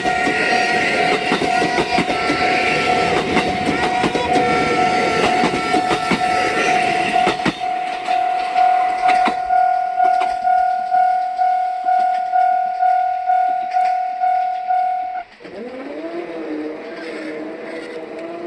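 Japanese railway level-crossing alarm ringing in a steady, evenly repeated ding while a train runs over the crossing; the train noise drops away about 7 s in, and the alarm stops about 15 s in, followed by a low rising whine.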